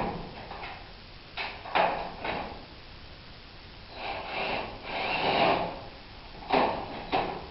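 A few sharp knocks and clunks, a longer sliding rumble lasting about two seconds, then two more knocks near the end.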